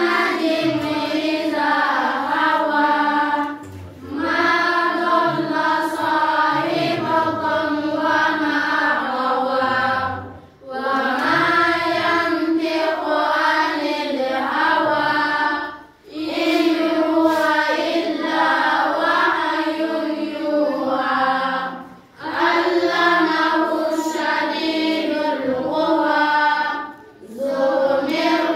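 A class of children reciting the Quran aloud together in a chant. The recitation runs in phrases of about five to six seconds, with short pauses for breath between them.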